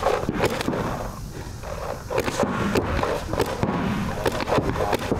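Paintball markers firing in quick, irregular bursts of sharp pops during close-range snap shooting.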